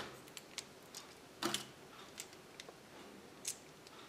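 Light plastic clicks and taps of a small Kinder Surprise dinosaur toy figure being turned over in the fingers, several scattered clicks with the loudest about one and a half seconds in.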